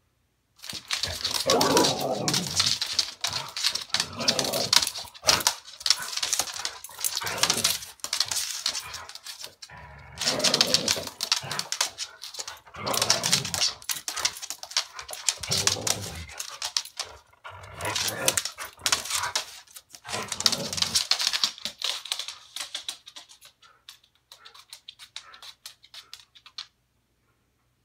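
A Siberian husky and a black dog playing rough: repeated bursts of dog play vocalizing every couple of seconds, mixed with scuffling and claws clicking on a hardwood floor.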